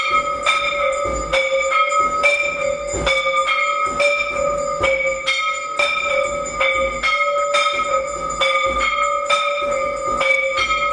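Temple bells rung continuously for the aarti, struck about twice a second, each stroke's ring carrying on into the next.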